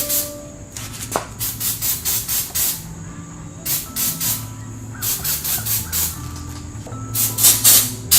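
Background hip-hop instrumental music: a stepping bass line under groups of short, rapid hissing hits, like hi-hat rolls.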